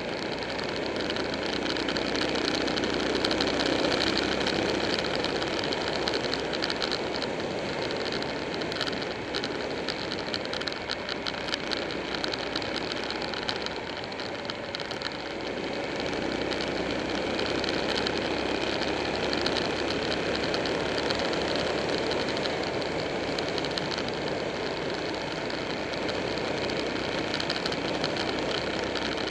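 Buell 1125R's 1125 cc V-twin engine running as the motorcycle rides along, mixed with the rush of wind and road noise. It drops in level for a few seconds about halfway through, then comes back up.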